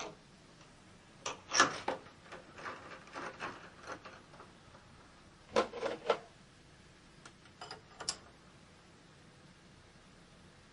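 Small metal tools and fittings being handled at a milling machine: several groups of sharp clicks and knocks, loudest about a second and a half in and again around six seconds in.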